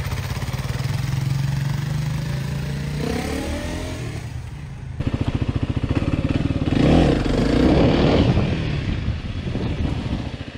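Kawasaki KLX300SM's 292 cc single-cylinder engine running steadily at low revs, then rising in pitch about three seconds in as it pulls away. After a sudden change about five seconds in, it runs louder, climbing in revs while under way.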